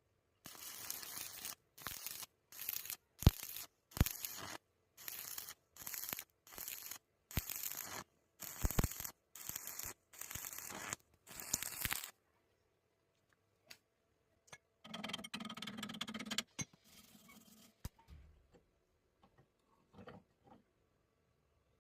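Welding arc crackling in a series of short bursts, about a dozen in the first half, like tack welds, then one longer burst and a few faint clicks.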